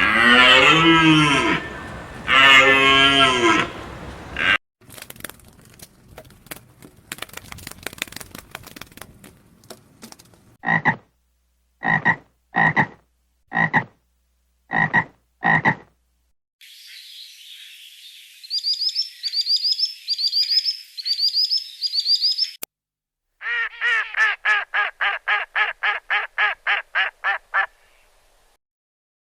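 A string of different animal calls, one after another. It opens with a loud call that bends in pitch, then come scattered clicks, six short high pips, a stretch of high chirping, and near the end a rapid run of about four pulsed calls a second that stops suddenly.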